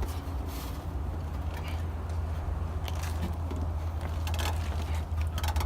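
Cold air intake parts being forced into place by hand, with scattered scrapes and clicks over a steady low rumble.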